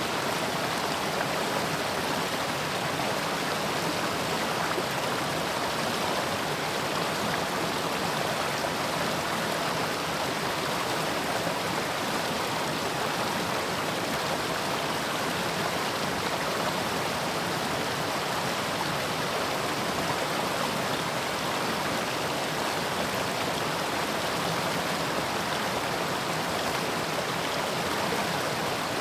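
A mountain stream rushing steadily over rocks, a continuous even rush of water.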